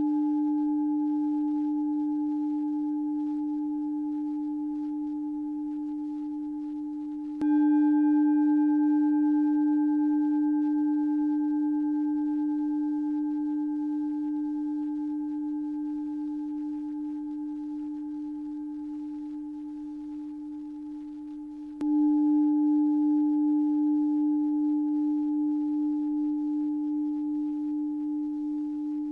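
Singing bowl ringing on one steady low note. It is struck again about seven seconds in and about twenty-two seconds in, and each stroke fades slowly with a gentle pulsing waver.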